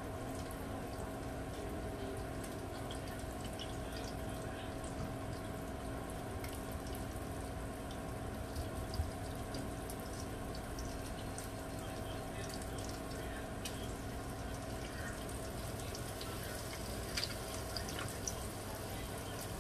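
Breaded tilapia fillets sizzling and crackling in hot oil in a skillet, a steady hiss with a few louder ticks.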